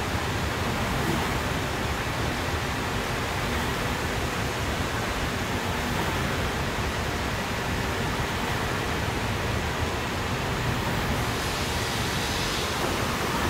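Steady, even rushing noise of a running CNC glass cutting line and its factory floor, with no distinct knocks or clicks.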